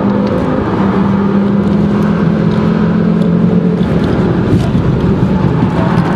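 Inside the cabin of a Volvo street car with a five-cylinder turbo engine under hard driving: a steady, loud engine note over road and wind noise.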